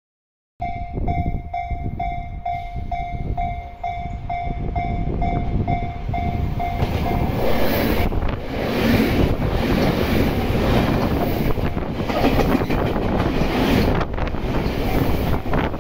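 A Japanese level-crossing warning bell rings in a steady pulse about twice a second. From about six seconds in, a Tobu 30000 series electric train passes close by with a loud rush of wheel and running noise and a few clacks over rail joints, and the bell is lost under it after about seven seconds.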